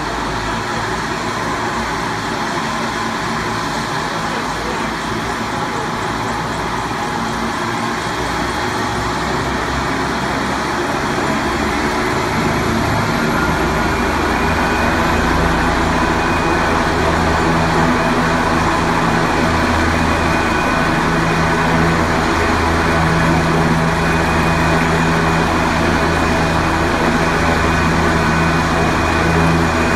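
A helicopter running on the ground with its main rotor turning: a continuous mechanical drone and whine that grows steadily louder, and from about halfway through takes on a stronger low hum.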